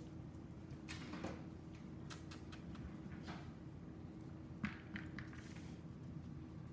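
Faint, scattered clicks and taps of dogs' claws on a hardwood floor as puppies move about.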